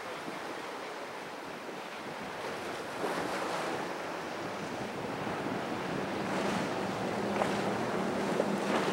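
Water rushing and wind on the microphone as a Scarab center-console boat runs past at speed, spray hissing off its hull. About six seconds in, the drone of its outboard engines comes up as a steady low hum, growing louder as the boat nears.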